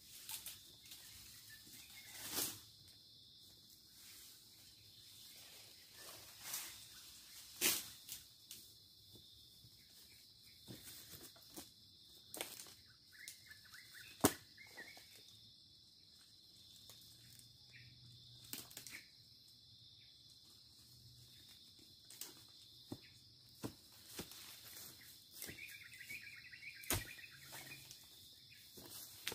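Steady high-pitched insect drone, with a few sharp knocks or cracks scattered through it. The loudest knock comes about halfway through, and there are two short spells of faint chirping.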